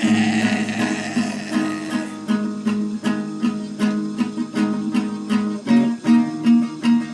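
Instrumental music: a guitar picking a steady, repeating pattern of plucked notes.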